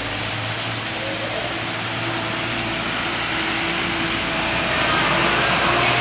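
Diesel truck engine running as the truck approaches and passes close by, growing louder toward the end, over the steady hiss of rain.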